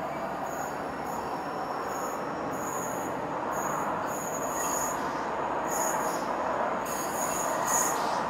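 Class 66-hauled freight train of empty box wagons rolling round a curve, wheels squealing in short, high-pitched bursts again and again over a steady rumble.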